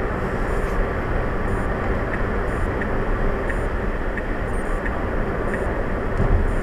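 Steady road and tyre rush heard inside a Tesla's cabin while it cruises at highway speed, about 95 km/h.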